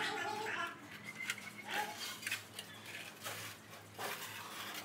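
Steel trowel scraping and spreading wet cement mortar on a concrete floor in a series of short strokes.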